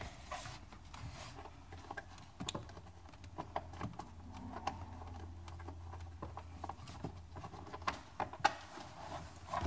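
Faint, irregular clicks and knocks of a socket on a long driver and hands working against metal and plastic trim while a 10 mm bolt is undone.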